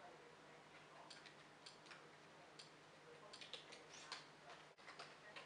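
Faint, irregular clicks, a dozen or so, bunched more closely in the second half, made while stepping through an on-screen media-centre menu. Otherwise near silence.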